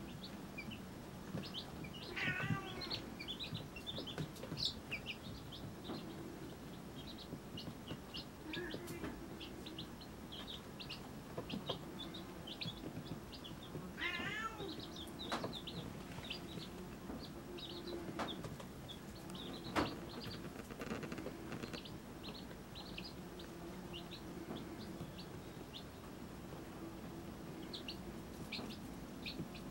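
Baby chicks peeping: many short, high chirps scattered through the whole stretch. Two longer warbling calls come at about two seconds and about fourteen seconds in, over a faint low steady hum.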